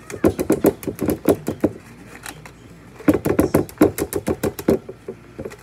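Hands tapping and patting the bottom of an upturned disposable aluminium foil cake pan to loosen the baked cake onto a plate. The taps come quickly, in two runs of about a second and a half each with a pause between.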